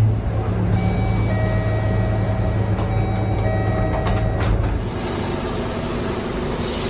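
Scania K230UB city bus with its diesel engine running, heard from inside at a stop. Several steady high electronic tones sound together for about four seconds, with two clicks near their end. After about five seconds the engine hum drops away into open street noise outside the bus.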